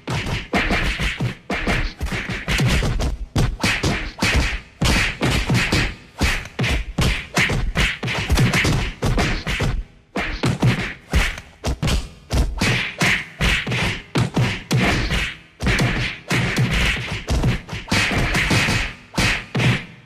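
Fight sound effects: a rapid, irregular run of punches and body hits, whacks and thuds several times a second, with short pauses between flurries.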